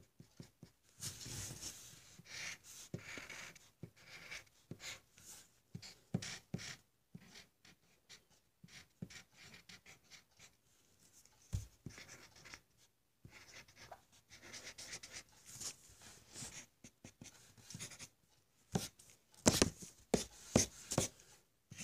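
Drawing on a sheet of paper: scratchy strokes in irregular spells with short pauses, a few louder strokes near the end.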